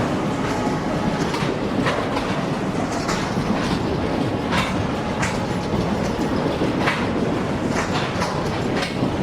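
Freight train wagons rolling past with a steady rumble, their wheels clicking over rail joints about once a second.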